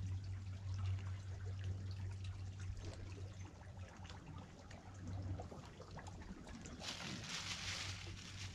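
Faint water trickling and lapping against shoreline rocks under a steady low hum, with a louder rustling hiss for about a second near the end.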